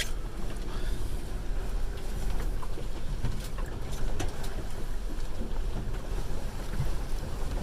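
Steady wind buffeting the microphone, with water rushing along the hull of a sailing boat under way.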